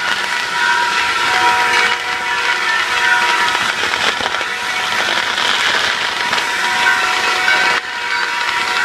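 Spark-spraying festival fireworks gushing in a continuous loud hiss, with a few steady whistling tones running through it.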